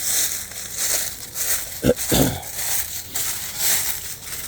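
Crunching and rustling noise of someone walking with a handheld recording device, with two short low thumps about two seconds in.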